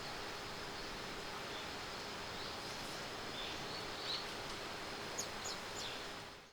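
Outdoor ambience, a steady hiss with a few faint, short, high-pitched wild-bird calls, including a quick run of descending chirps in the latter half; the ambience fades out at the end.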